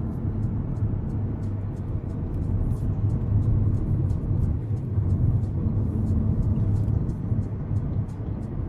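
Steady low rumble of road and engine noise inside a moving car's cabin at road speed.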